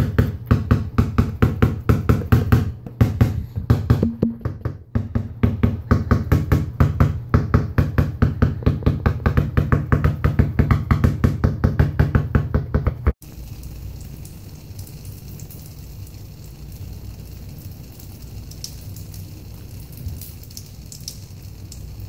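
Music with a fast, steady drum beat. It cuts off abruptly about two-thirds of the way through, leaving a much quieter steady low rumble with a few faint clicks.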